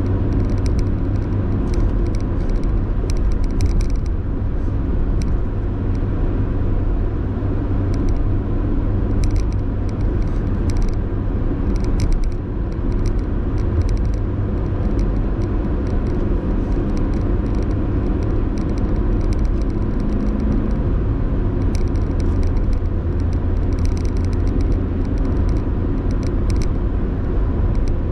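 A car driving, with the steady rumble of engine and road noise throughout. Clusters of light clicks come through now and then.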